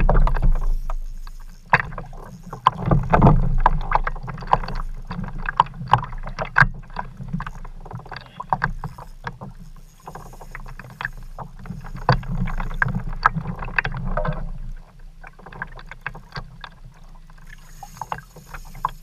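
Water slapping and knocking against a plastic fishing kayak's hull at sea, over a steady low rumble, with many short clicks and knocks from the boat and the fishing gear being handled. The knocking is busiest about two to five seconds in and eases near the end.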